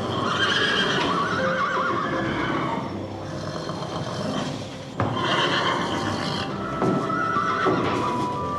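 Animal calls: a long wavering call in the first two and a half seconds, a second one about five seconds in, and shorter calls near the end.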